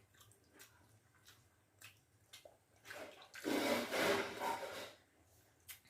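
Water sloshing in a bowl of pakhala, rice soaked in water, for about two seconds starting about three seconds in, with faint small clicks of eating before it.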